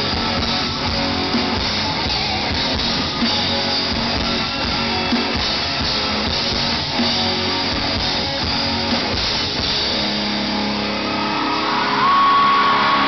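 Live rock band playing: electric guitars over a drum kit, with accented hits about every two seconds. Around ten seconds in the drums drop away and the guitars ring on, with a single high note held, louder, near the end.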